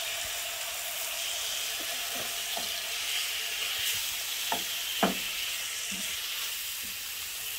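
Raw boneless chicken chunks sizzling steadily in hot oil in a frying pan as a silicone spatula spreads them, with a few light knocks of the spatula against the pan about halfway through, the loudest about five seconds in.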